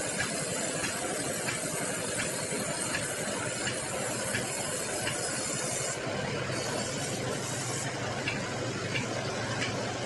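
Sawmill band saw and its drive running steadily, with light clinks every second or so. About six seconds in, the high hiss thins and a low hum comes forward.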